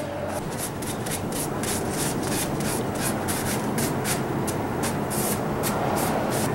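Paper towel rubbed briskly over a red oak board, wiping it down in quick scratchy strokes, about four a second.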